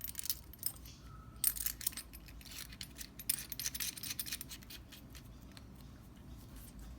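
Small metal parts of a gas soldering iron clicking and scraping as a new tip is fitted. A quick run of light metallic clicks eases off after about four and a half seconds.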